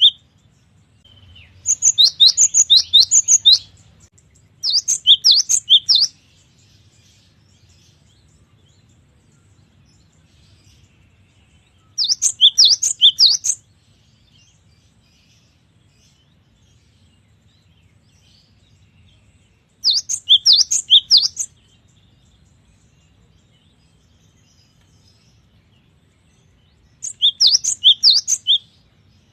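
Cinereous tit (gelatik batu) singing: five short bursts of rapid, repeated high notes, each burst about one and a half to two seconds long, with pauses of several seconds between them.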